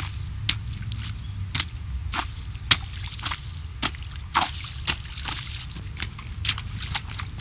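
Shoes splashing through a shallow rain puddle on asphalt: irregular sharp splashes and drips, about one to two a second, over a steady low rumble.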